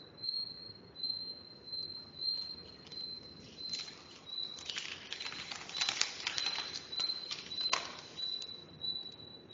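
A high chirping tone repeating in short pulses, a little under two a second, with bursts of crackling noise through the middle.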